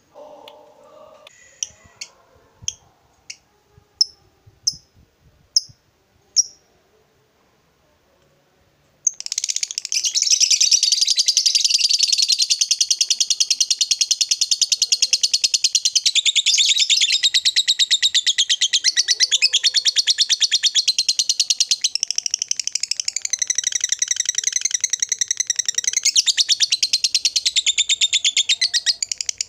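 Fischer's lovebird giving a few short, evenly spaced chirps, then after a short pause launching into a long, unbroken, rapid chattering trill of about twenty seconds: the long 'ngekek' chatter prized in a lovebird in good singing form.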